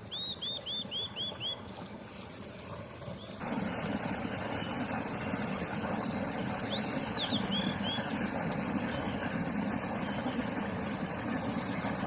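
A bird calls a quick run of six arching notes in the first couple of seconds, and gives a few more gliding notes midway. About three and a half seconds in, the background changes abruptly to a louder steady low rumble and hiss.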